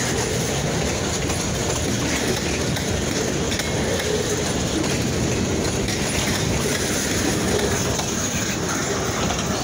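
Kiamichi Railroad freight train rolling past, a steady noise of steel wheels running on the rails.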